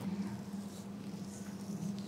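Hands rubbing the skin and hair of the neck and behind the ear during a head and neck massage, a few faint scratchy strokes over a steady low hum.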